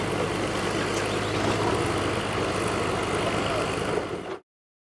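Diesel pickup truck engine running steadily at low revs, with a hazy outdoor background. It cuts off suddenly near the end.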